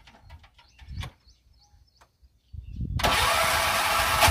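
Piaggio Ape auto-rickshaw's single-cylinder engine ticking to a stop after being switched off. After a second or so of near silence it is cranked on the electric starter and catches about three seconds in, running loudly with a fast even beat. It is one of many starts in a test of how many starts a fully charged battery gives.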